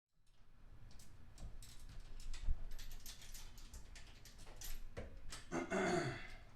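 Light, irregular clicks and rattles of hand tools and engine parts being handled under the hood during spark plug removal, with a brief squeak falling in pitch near the end.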